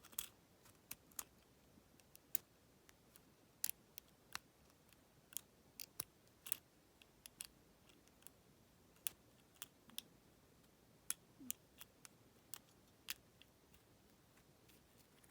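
Faint, irregular metallic clicks of a lock pick and tension wrench working the pins inside a Federal PL90PE lockout padlock during single-pin picking, thinning out near the end.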